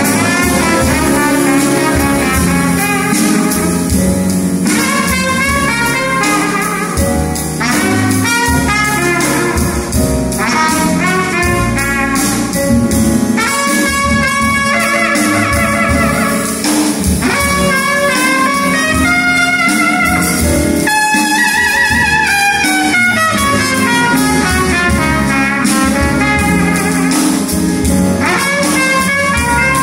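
Solo trumpet playing a jazz melody in phrases over a symphony orchestra's accompaniment, with one phrase sliding downward about two-thirds of the way through.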